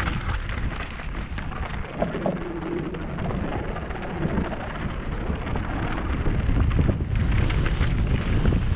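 Wind rushing over a helmet-mounted camera's microphone while a downhill mountain bike rattles and its tyres rumble over a rough dirt trail at speed.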